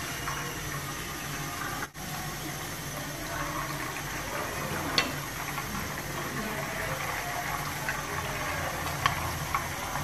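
Marinated chicken pieces sizzling in hot oil in a frying pan as they are dropped in one by one, with a few sharp pops.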